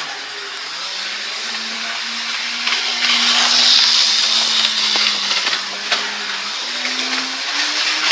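Electric toy train's motor whirring as it runs along the track, over a steady hiss; the hum dips in the middle and rises in pitch near the end as the train speeds up.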